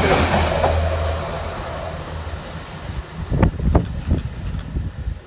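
A train passing through the station and moving away: the rush of its wheels and a low running hum fade over the first two seconds. A few low thumps follow about three to four seconds in.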